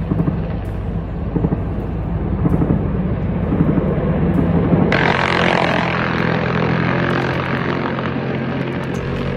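Helicopter flying close by: a steady engine and rotor drone that swells suddenly, about five seconds in, into a much louder rushing noise over a steady low hum.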